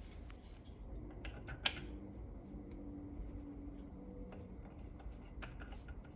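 Light, scattered clicks and taps of small wooden pieces being handled and set down on a windowsill: wooden nutcracker figures and the little date blocks held by a Santa nutcracker.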